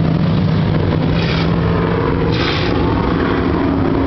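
A pack of Street Stock race cars' V8 engines running together as they circle the track, a steady low drone. Two brief swells of higher-pitched noise come through about a second and two and a half seconds in.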